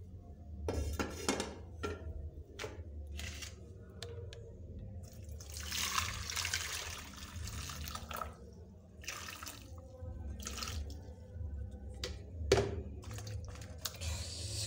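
Hot water poured from a plastic jug over smoked fish in a metal bowl, splashing for a couple of seconds in the middle, with knocks and clinks of the metal pot, bowl and jug before and after and one louder knock near the end.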